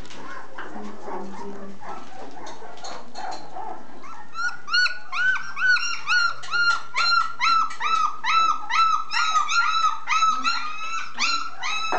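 Basset hound puppy crying in a rapid run of short, high yelps, about three or four a second, starting about four seconds in.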